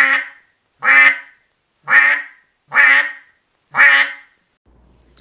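A duck quacking five times, evenly spaced about a second apart.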